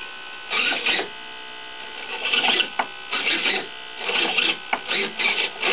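RC servo whirring in several short bursts as it swings the twin steerable tail wheel legs of a 1:10 scale model Stirling from side to side.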